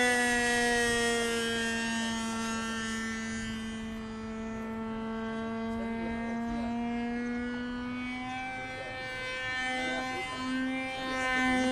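Motor of a flying RC model Messerschmitt Me 163 Komet whining steadily overhead. Its pitch drops slightly about a second and a half in, it fades a little toward the middle, and it stutters in short pulses near the end.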